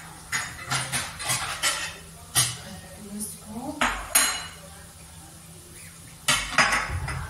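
Dishes and cutlery clinking and clattering in short bursts. There is a run of sharp clinks over the first two seconds or so, two more about four seconds in, and another cluster near the end.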